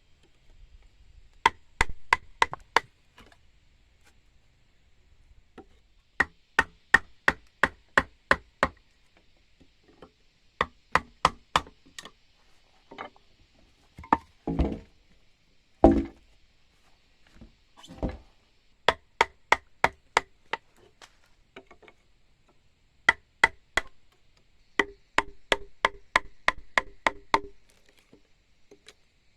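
Hand tool striking wood in quick runs of five to eight sharp, ringing blows, about three a second, with short pauses between runs. A few heavier, duller thuds come in the middle.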